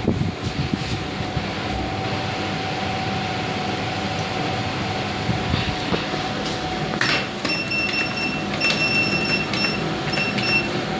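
GoldStar passenger lift car travelling down its shaft: a steady running hum with a thin steady whine. From about two-thirds of the way in, a knock and then several runs of high electronic beeping.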